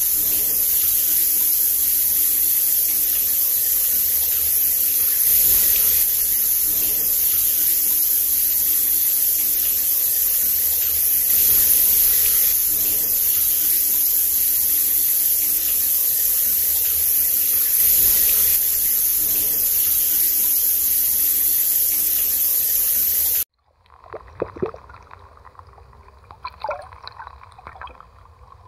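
Steady, loud rush of pool water, even throughout, cutting off suddenly after about 23 seconds. It gives way to quieter, irregular splashing and lapping of a small dog paddling in a creek.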